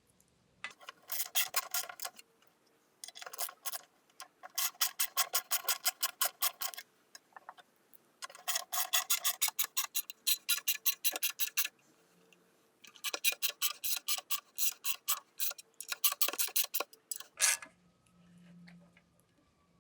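Ratchet wrench clicking in quick runs of about nine clicks a second, six runs with short pauses between, as bolts are run in tight on an outboard engine's cover, one of them in a freshly re-tapped hole.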